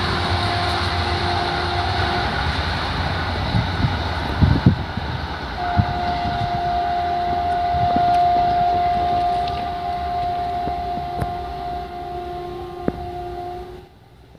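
Passenger train running on the rails: a steady rumble with a sustained high tone over it and a few sharp clicks, dropping away suddenly near the end.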